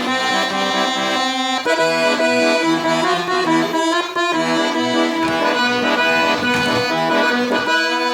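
Piatanesi accordion playing a tune with chords and bass, set by a trick register combination to give a musette-like tone even though the instrument has no musette reed set.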